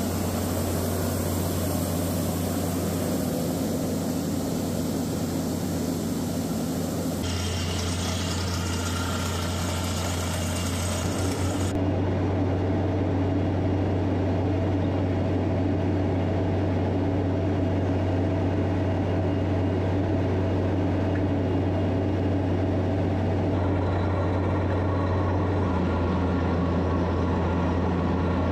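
Schramm water-well drilling rig's Caterpillar 3406 diesel engine running at a steady speed: a constant low hum.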